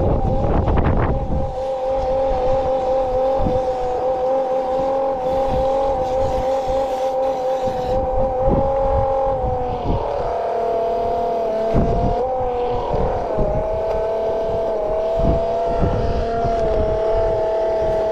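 Milwaukee cordless transfer pump's electric motor running with a steady whine, which drops a little in pitch about halfway through, while it pumps water from a flooded hole. Scattered low thumps and rumble can be heard beneath it.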